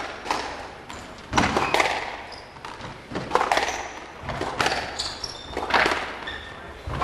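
Squash rally: the ball is struck with rackets and hits the court walls, giving sharp knocks about every second, some in quick pairs, with short high squeaks between the hits.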